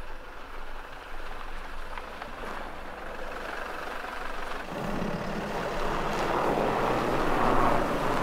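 A car pulling out and driving off over packed snow, its engine and tyres running steadily and growing louder about halfway through.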